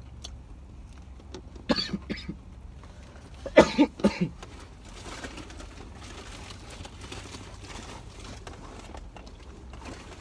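A person coughing in two short bouts, about two seconds in and again, louder, around four seconds in, over a steady low hum in a car cabin. A faint rustle follows.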